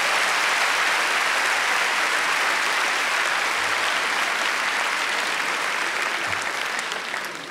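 Theatre audience applauding, a steady burst of clapping that eases off near the end.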